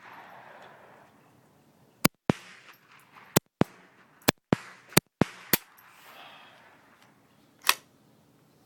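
A small gun firing at targets: sharp shots, mostly in quick pairs, nine of them between about two and five and a half seconds in, then one longer, ringing crack near the end.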